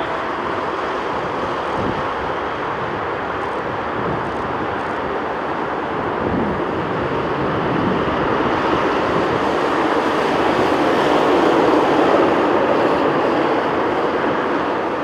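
Jet airliner on final approach passing overhead, a steady engine roar that swells to its loudest about eleven seconds in and then eases off.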